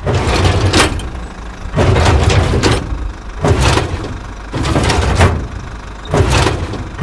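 Toy truck's wheels rumbling as it is pushed across a hard surface, in repeated strokes about every second and a half.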